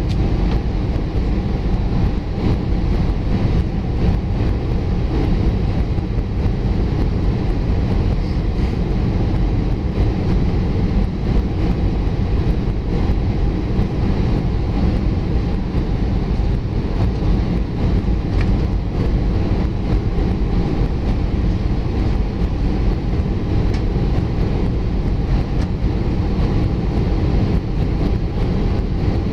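Steady cabin noise inside an Airbus A320 on descent: an even, low rumble of the jet engines and airflow, heard from a window seat beside the engine.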